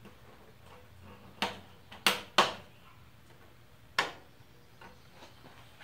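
Plastic drive-bay covers snapping into the front bezel of a PC tower case: four sharp plastic clicks, the loudest pair close together about two seconds in and another about four seconds in, with a few faint ticks after.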